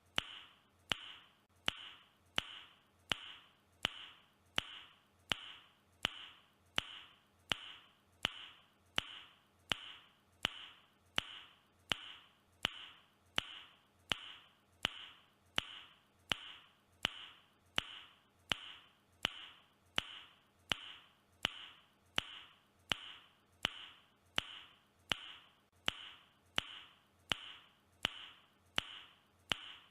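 A man's tongue click made with the mouth, repeated as an even loop about three times every two seconds, each a sharp click with a short high ringing after it.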